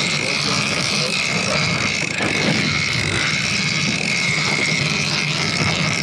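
Boat engine running steadily, with a constant hum and hiss.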